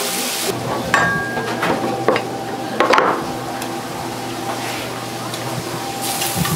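Food sizzling in a hot pan. The sizzle drops away about half a second in and returns near the end, with a few knocks and clinks of kitchen utensils in between and a steady hum underneath.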